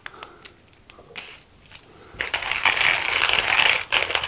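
Flafster hand-crank coffee grinder's ceramic burrs crushing coffee beans as the handle is turned. A dense crackling grind starts about two seconds in, after a few light clicks. The grinder is set to a medium grind for a drip coffee maker.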